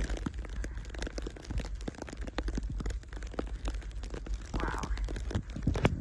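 Footsteps crunching through deep fresh snow, an irregular run of short crunches, with wind buffeting the microphone as a low rumble underneath.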